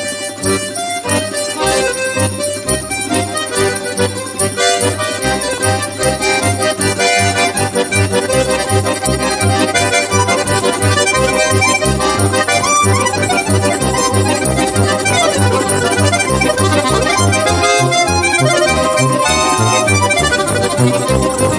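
Background music: an accordion melody of held notes over a steady, regular bass beat.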